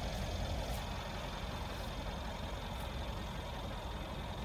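Mercedes-Benz S63 AMG's 5.5-litre twin-turbo V8 idling with a steady low rumble.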